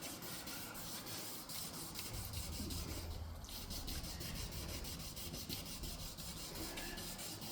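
Wet-and-dry sandpaper rubbed by hand over a plastic headlight lens in long back-and-forth strokes, a steady rhythmic rasping, sanding out scratches in the lens.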